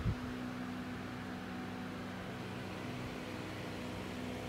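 A steady low hum with a fixed pitch over a faint hiss, like a household appliance or fan running, with a short soft knock right at the start.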